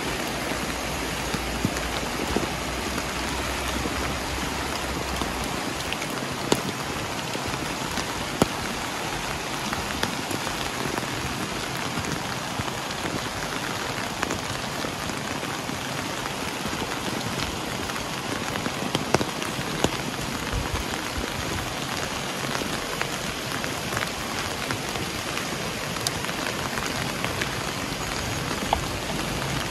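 Steady rain falling: an even hiss with scattered sharp drop taps. A low rumble under it in the first few seconds fades out about five seconds in.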